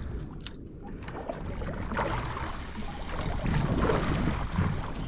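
Wind buffeting the microphone over water slapping against a drifting boat's hull: an uneven low rumble that swells a little after about two seconds. A few faint clicks about half a second and a second in.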